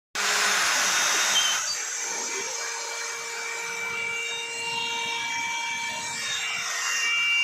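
CNC router spindle running with a steady high whine while its bit cuts acrylic sheet. A louder hissing cutting noise for about the first second and a half gives way to a quieter, steady whine.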